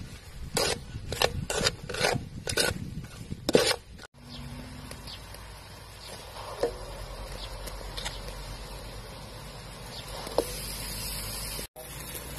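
Kitchen cooking sounds: about half a dozen sharp scraping strokes over the first four seconds, then a steady hiss with a few light taps.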